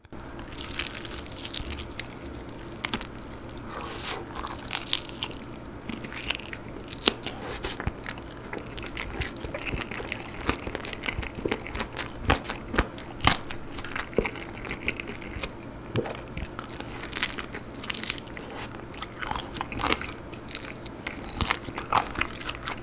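Close-miked biting and chewing of sauce-glazed Korean fried chicken (Mom's Touch allulose yangnyeom chicken), the coating crunching in irregular bites, a few louder crunches among them.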